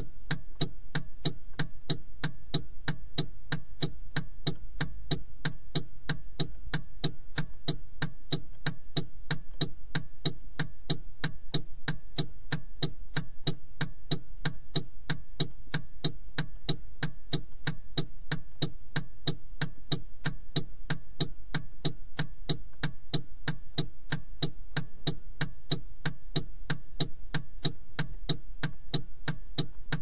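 Car turn-signal indicator ticking inside the cabin, an even run of clicks at a steady pace, over a low steady hum.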